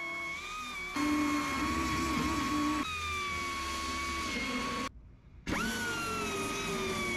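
Pneumatic finger belt sander grinding steel, running with a steady whine. It drops out briefly about five seconds in, spins back up with a rising whine, then cuts off suddenly.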